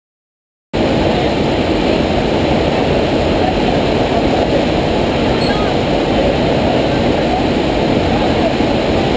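Steady, loud rush of water from a FlowRider-type sheet-wave machine, water pumped up and over the ramp. It starts abruptly from silence about a second in.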